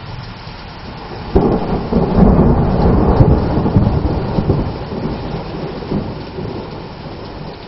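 Steady heavy rain, and about a second and a half in a thunderclap: a sudden crack that breaks into a rumble and dies away over several seconds.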